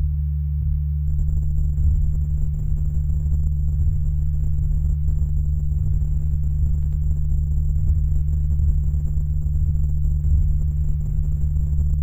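Chainsaw idling: a steady low buzzing drone that comes in about a second in, over a constant low hum.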